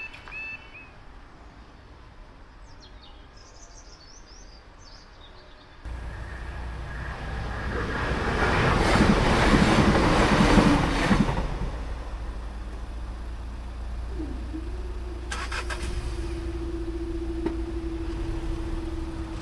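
Diesel passenger train passing over a level crossing: a rush of engine and wheel noise that builds to a loud peak and then fades. It is preceded by the last second of the crossing's warning alarm, a repeating two-tone sound, and followed by a steady hum as the barrier booms lift.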